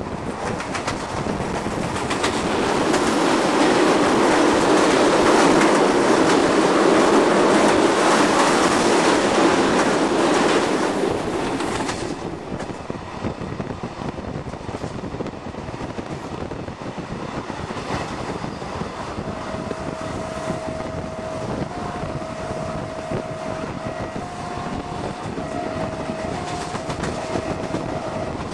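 Passenger train running along the track, heard at an open carriage window, with the clickety-clack of the wheels over the rail joints. A loud rushing noise swells in the first ten seconds and drops off sharply about twelve seconds in. A faint, steady high tone joins in the second half.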